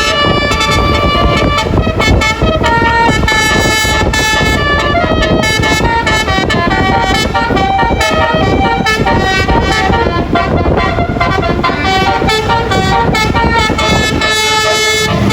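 A bus's basuri telolet horn, a multi-tone musical horn, playing a tune of quickly changing notes without a break, over the rumble of the bus and traffic.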